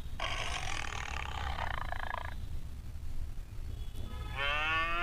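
A tiger roar: a rough, raspy growl lasting about two seconds. Near the end a different pitched sound starts, rising in pitch.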